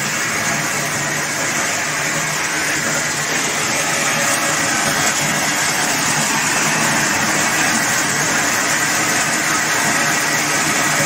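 Sacha inchi shelling machine running as it cracks the seeds and separates shells from kernels: a loud, even mechanical noise.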